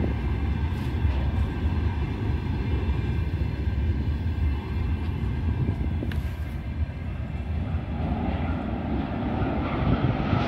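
Loaded iron ore freight wagons rolling past on the rails: a steady low rumble of wheels on track, with faint steady high ringing tones above it.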